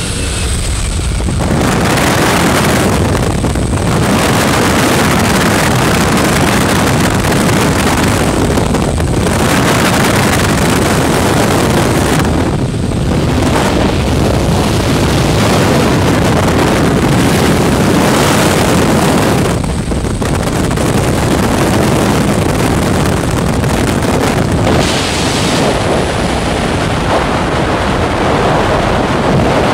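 Loud, steady wind rush on a helmet camera's microphone, at the open door of a single-engine propeller plane and then in freefall, thinning briefly about half a dozen times.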